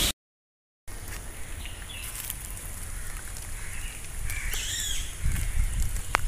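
After a moment of dead silence, outdoor ambience with a low rumble underneath. Birds call a few times in the middle, and there is a single sharp click near the end.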